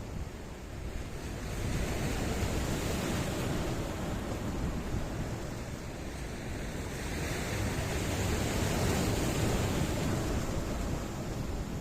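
Sea surf rushing in over rocks, a steady wash of breaking water that swells about two seconds in and again, louder, around eight to nine seconds.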